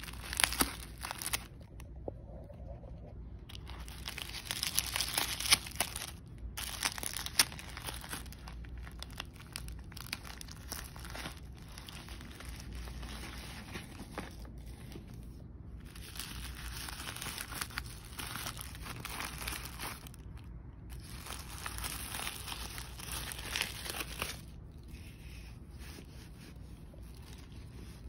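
Packaging being unwrapped by hand: paper crinkling and tearing in irregular stretches with sharp crackles, broken by short pauses.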